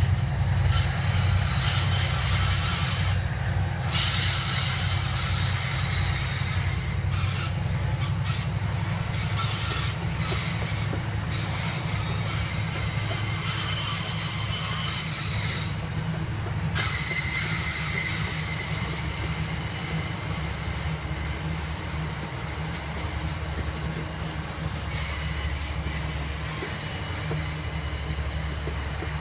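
Aurizon grain train's hopper wagons rolling past, steel wheels on rail giving a deep steady rumble. Thin high squeals from the wheels come and go over it.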